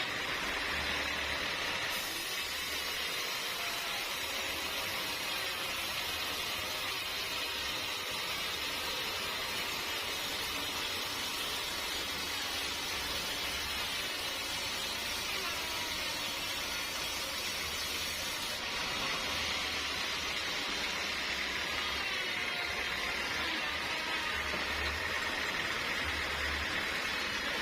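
Sawmill cutting through a teak log: a steady hissing run of saw and machine noise that shifts abruptly twice.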